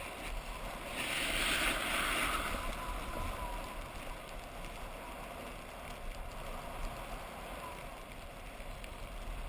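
Steady rush of wind over a moving action camera's microphone, mixed with the hiss of sliding over packed snow on a downhill run; the hiss grows louder and sharper from about a second in for a second or so, as in a scraping turn.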